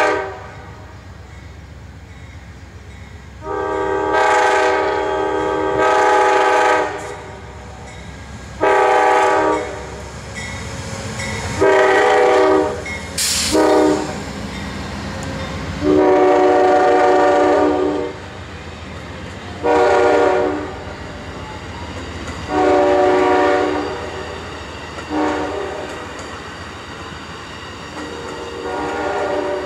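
Amtrak passenger train passing close by: the locomotive's air horn sounds a series of blasts, long and short in turn, as for road crossings, over the steady low rumble of the coaches' wheels on the rails.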